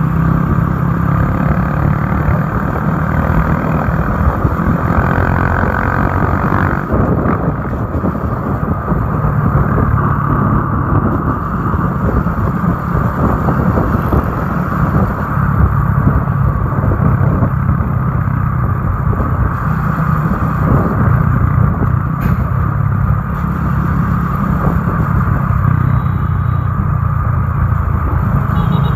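Motorcycle engine running steadily at road speed, heard from on the moving bike with wind and road noise.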